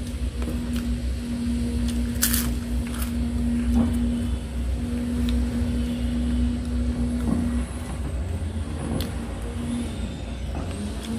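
A steady low rumble with a hum that breaks off now and then, with scattered light clicks and one short crisp crackle about two seconds in, from fingers working rice on a steel plate.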